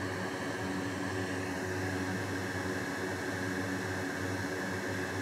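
Steady hum and hiss of an electric fan running on a repair bench, even throughout with no change.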